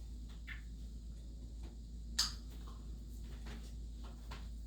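Quiet room with a steady low hum and a few soft, scattered clicks from items being handled on a table. The clearest click comes about two seconds in.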